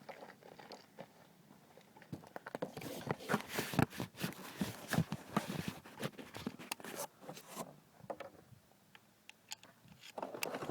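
Footsteps crunching over rough ground, with scattered clicks and knocks from clay targets being handled and picked up, busiest in the middle.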